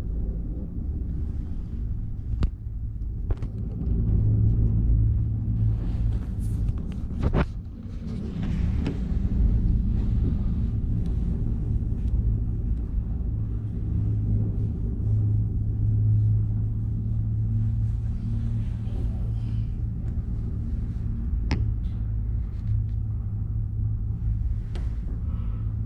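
PEAK 2 PEAK tricable gondola cabin travelling along its cables: a steady low rumble, with a few short sharp clicks or knocks now and then.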